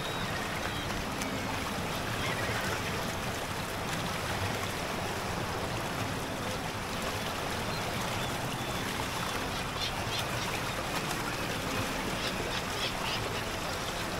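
Steady rush of flowing water, with gulls calling faintly now and then.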